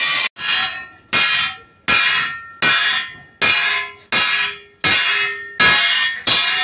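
Hand hammer striking the steel main leaf of a Benz truck leaf spring laid across an anvil. There are nine evenly paced, ringing metal blows, about three-quarters of a second apart, each ring fading before the next.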